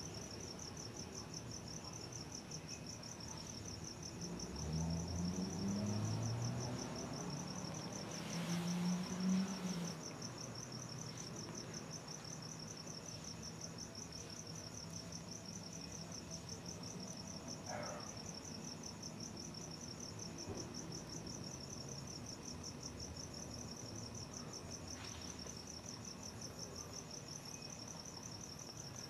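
Crickets chirping in a steady, pulsing trill. A louder low-pitched sound joins them about four seconds in and fades out by about ten seconds.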